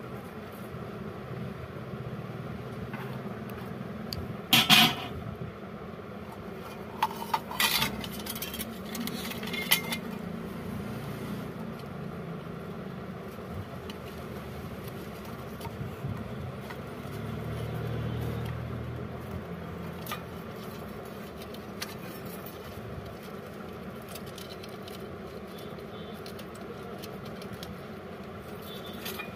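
A few sharp metallic clicks and clinks from pliers and hands working on an electric iron's wiring terminals, in the first third, over a steady low background rumble that swells a little past halfway.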